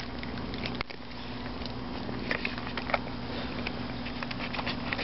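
Several cats eating dry kibble from a bowl, with irregular crisp crunches of the pellets being chewed.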